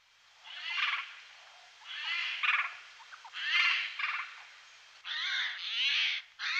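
Eurasian jay calling: a series of about six loud calls roughly a second apart, each about half a second long and made of quick sliding notes, the last two close together.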